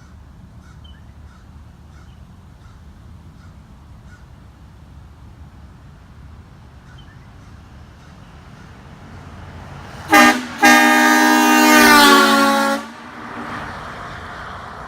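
Kleinn air horns sounding: a short toot about ten seconds in, then a long blast of about two seconds, a chord of several tones that sags slightly in pitch as it cuts off. A hiss follows the blast.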